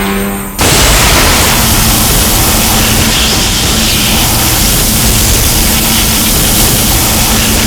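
Kaiju-film sound effect: a loud, steady rushing noise with a faint low hum, cutting in abruptly about half a second in as a held tone stops.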